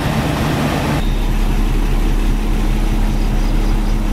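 Heavy diesel engine idling steadily with a deep, even hum. The sound changes abruptly about a second in, then holds steady.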